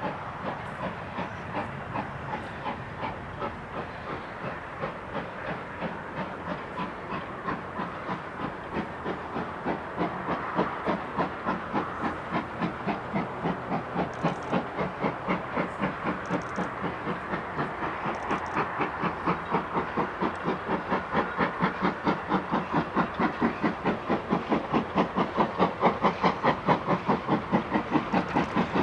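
Steam locomotive 4930 'Hagley Hall', a GWR Hall-class 4-6-0, working a goods train: a steady, even beat of exhaust chuffs with steam hiss, growing louder as it approaches.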